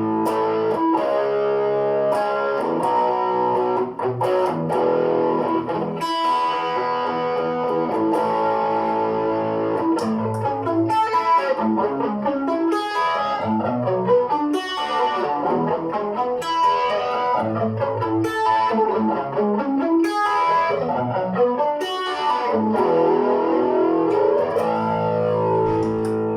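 Electric guitar played through a Boss DS-1 distortion pedal. It opens with held distorted chords, moves to fast single-note runs climbing and falling in the middle, and returns to held chords near the end.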